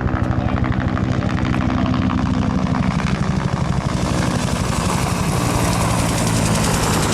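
Helicopter making a low pass, its rotor blades beating in a fast, even chop over the steady turbine running, with the sound growing fuller and brighter toward the end as it comes closer.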